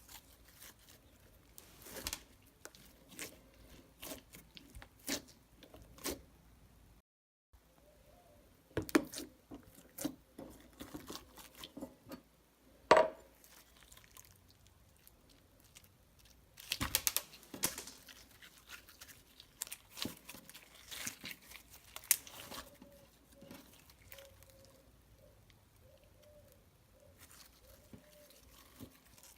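Slime being squished, poked and stretched by hand, giving irregular sticky clicks, pops and crackles, bunched into quick runs at times. The sound cuts out for a moment about seven seconds in.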